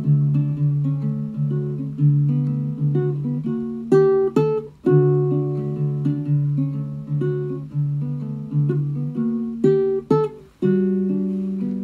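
Ukulele played fingerstyle: picked notes ringing over one another in an unhurried pattern, with a sharper chord about four seconds in and again near ten seconds, each followed by a brief pause.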